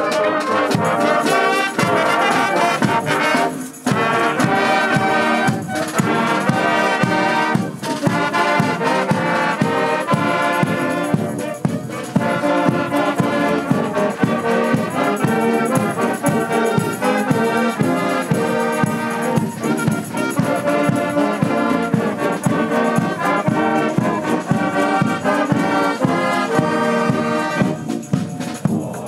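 Brass wind band playing a march, many instruments sounding together over a steady drum beat.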